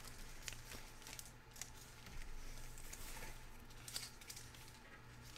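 Faint crinkling and rustling of a foil trading-card pack wrapper and the cards being handled and set down, a few soft ticks and rustles over a low steady hum.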